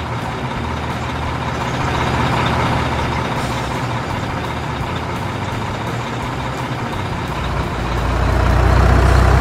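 Heavy truck engine running steadily, a dubbed sound effect rather than the toys themselves. It swells louder and deeper near the end.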